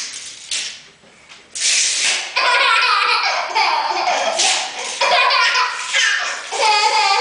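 A baby laughing in repeated bursts of breathy giggles, with a string of quick, wavering laugh pulses near the end.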